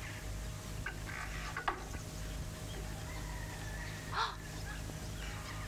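Faint calls of farmyard fowl, with one short, louder call about four seconds in. Underneath runs the steady low hum of an old film soundtrack, and there are a couple of light knocks between one and two seconds in.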